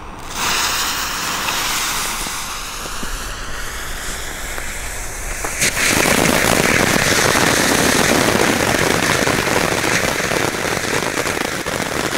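'Rings of Fire' youth-firework ground fountains hissing and crackling as they spray sparks. The sound gets louder and denser about six seconds in, then holds steady.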